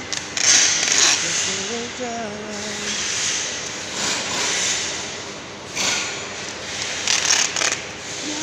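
Handling noise from packing aluminium scaffolding frames in bubble wrap: irregular bursts of plastic rustling and metal scraping as the frames are pushed into place. A voice is heard briefly about two seconds in.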